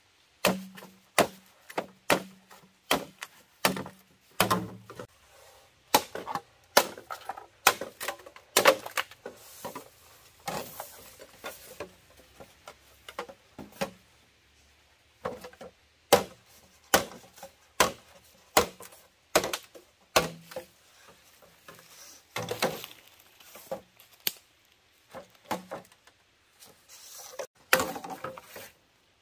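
Irregular series of sharp chopping strikes on wood, about one or two a second, with a short pause about halfway through.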